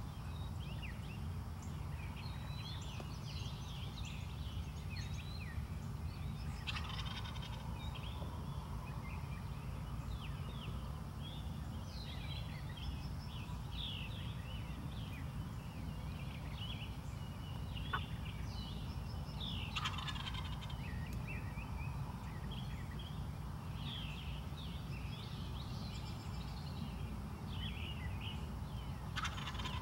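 Wild turkey gobbler gobbling three times: about seven seconds in, around twenty seconds, and again at the very end, each call short. Small birds chirp throughout.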